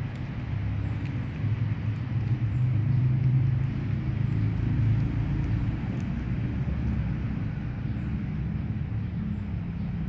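Steady low rumble of an engine running nearby. It swells louder a couple of seconds in and eases off after about five seconds.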